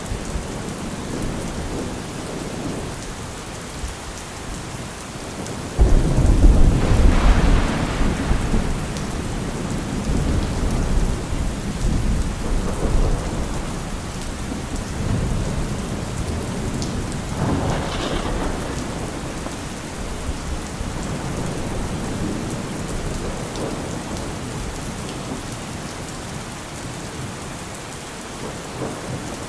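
Steady rain falling, with a sudden loud thunderclap about six seconds in that rumbles on for a few seconds, and a second, weaker peal of thunder about a third of the way from the end.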